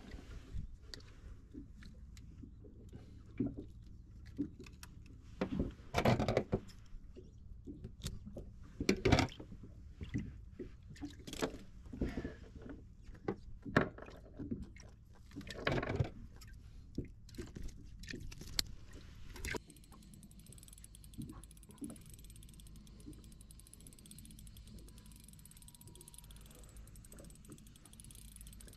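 Irregular clicks and knocks of fishing gear being handled on a small boat: metal fish-grip pliers clamping and a small caught fish being unhooked. About two-thirds through the knocks stop abruptly, leaving a low steady rumble with a few faint taps.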